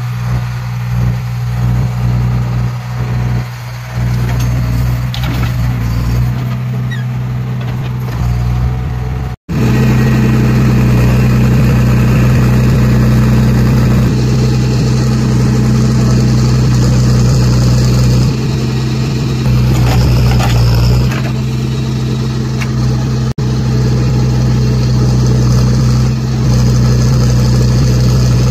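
JCB backhoe loader's diesel engine running steadily under load while the backhoe arm digs soil. It drops out for an instant about nine seconds in and comes back louder.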